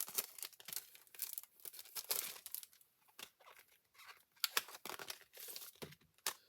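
Plastic product packaging crinkling and rustling as it is handled, in irregular crackles.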